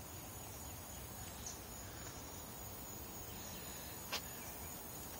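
Quiet outdoor background: a faint steady hiss with a thin, steady high tone like insects, and one short click about four seconds in.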